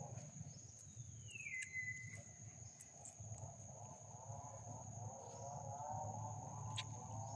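Insects such as crickets or cicadas buzzing, one steady high-pitched tone. A single call falls in pitch about a second and a half in, and faint background music comes back from about three seconds in.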